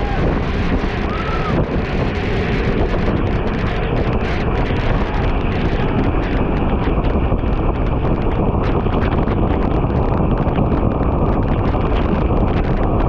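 Steady, loud wind rushing over the microphone of a camera carried at racing speed on a bicycle.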